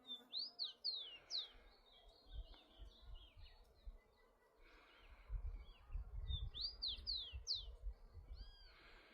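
Rufous-collared sparrow (tico-tico) singing: two short songs of clear, high, down-slurred whistles, one at the start and one about six seconds later, with softer chirps between them. A low rumble sits under the second half.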